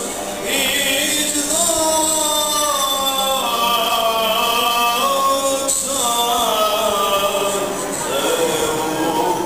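Male voices chanting a slow melody in long held notes that glide from one pitch to the next: Greek Orthodox church chant.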